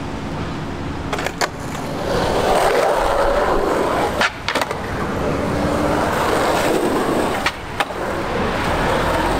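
Skateboard wheels rolling on rough concrete, with sharp clacks of the board in close pairs three times.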